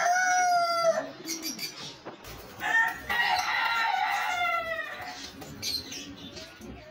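A rooster crowing twice: the end of one long crow trailing off about a second in, then a second long crow from about two and a half to five seconds in, its pitch dropping at the close.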